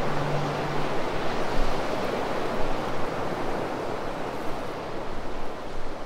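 Sea waves washing against a rocky shore, with wind, as a steady rushing noise. A low held music note dies away about a second in.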